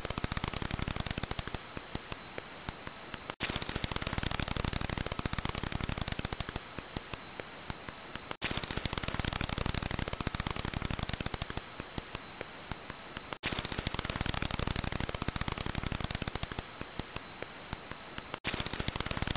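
Long-eared bat echolocation calls: a dense rapid train of clicks, then a slower run of separate ticks, the same short recording restarting about every five seconds, over a faint steady high tone.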